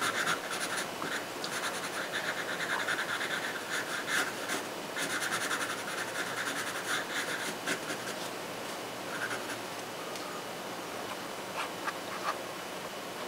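Pencil scratching on paper in rapid short strokes as palm fronds are sketched. The strokes stop about two thirds of the way through, leaving only a few faint ticks.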